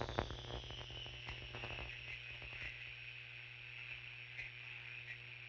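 Faint open-channel static from a CB radio receiver between transmissions, over a steady low hum. Scattered crackles thin out after about two seconds, and a thin whistle slides down in pitch over the same stretch.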